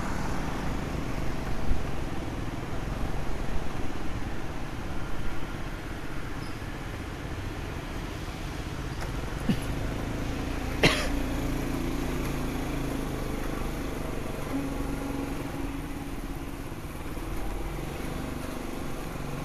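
Motorbike ride heard from the rider's position: the small engine running under a steady wash of road and wind noise, with other traffic passing at first. A single sharp click about eleven seconds in.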